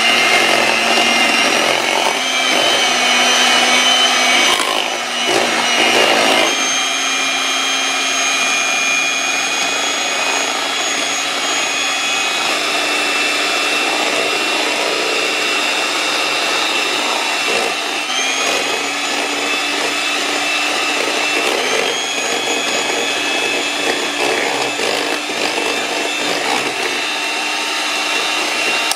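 Electric hand mixer running steadily, its wire beaters churning through cream cheese filling in a stainless steel bowl. The motor's whine shifts a little in pitch a few times as the load changes.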